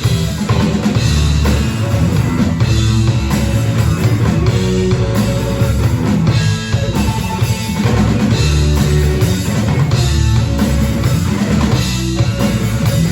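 Rock band playing an instrumental passage: drum kit, electric guitar and bass together, with no singing.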